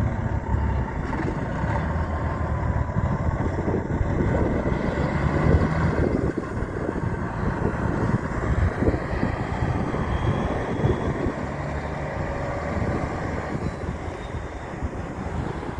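Big truck's engine running, a dense, steady low rumble that eases off a little near the end.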